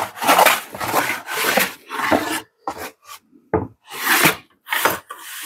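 Small hand plane making short, quick strokes across a thin resawn board to flatten it, each pass a rasping shave of wood, about ten strokes of uneven length.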